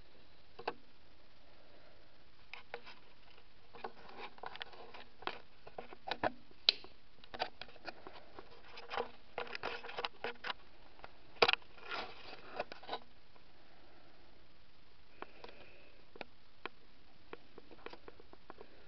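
Bubble-wrapped parts and packaging being handled: crinkling plastic, with light clicks and knocks. It comes in a busy run of crackles from about four to thirteen seconds in, then a few scattered clicks, over a steady low hiss.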